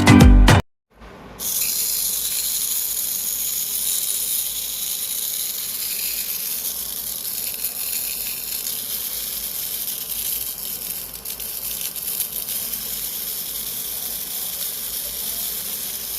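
Music cuts off, and after a brief silence a homemade mixer grinder's small motor runs steadily with a high hiss.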